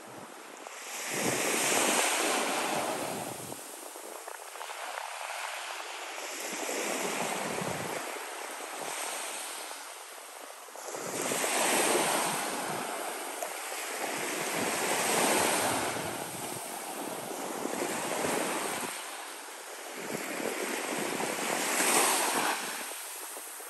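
Small Gulf of Mexico waves breaking and washing up a sand beach. The surf swells and fades every few seconds.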